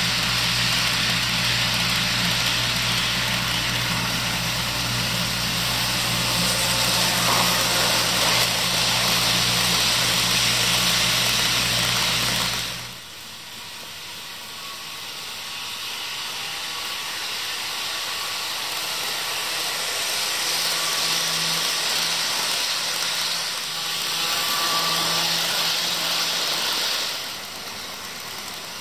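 HO scale model trains running on sectional track: steady rolling of metal wheels on rail and the whir of the locomotive motors, with a low hum. The sound drops suddenly about 13 s in, then grows gradually as the next train approaches, falling away again near the end.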